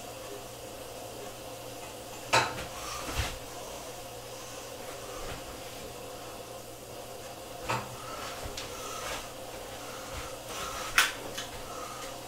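Metal tongs clanking against pans and metal bowls on a stovetop: a few sharp clanks about two, three and eight seconds in, and the loudest near the end, over a steady low hum.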